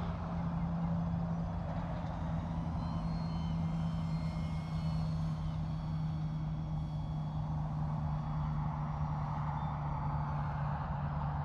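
Small electric RC flying wing, a sub-250 g forward-swept plane, in flight at cruise: its motor and propeller give a faint high whine that wavers slightly in pitch, over a steady low hum and outdoor noise.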